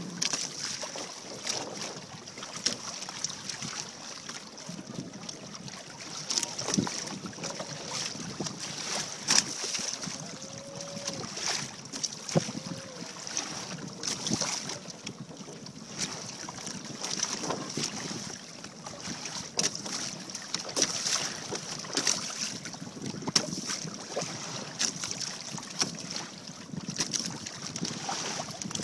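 Wind buffeting the microphone while water slaps and splashes against the hull of a Hobie Adventure Island sailing kayak under way through ocean chop, with many short irregular splashes over a steady rush.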